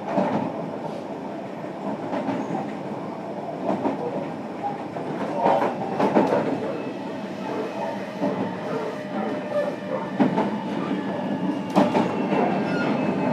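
JR Kyushu 305 series electric train, heard from inside its motor car, running along the track: a steady rumble of wheels on rail with several sharp knocks from rail joints. Thin high tones from the Toshiba PMSM traction equipment come in during the second half.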